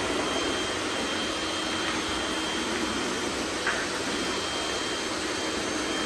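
Robot vacuum cleaners running: a steady whir of their suction motors with a faint high whine. A light click comes a little past halfway.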